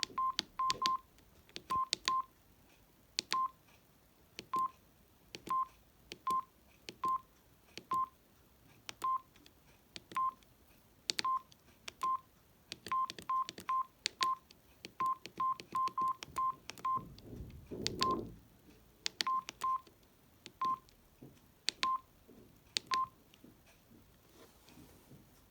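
Samsung SGH-D600 slider phone's keypad beeps: short single-pitch beeps, each with the click of a key being pressed, coming irregularly at one to three a second as the menus are stepped through. The beeps stop a couple of seconds before the end, and there is a brief low rumble about two-thirds of the way through.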